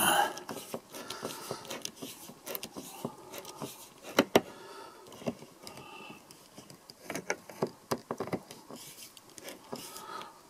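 A long screwdriver turning out a screw from a motorhome window frame: irregular small clicks and scrapes of the blade and screw, a few of them louder.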